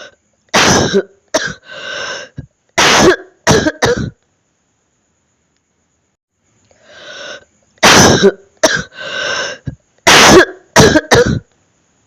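A person's wet, phlegmy cough: two fits about seven seconds apart, each a breath in followed by a string of about five hard coughs with a breath drawn partway through.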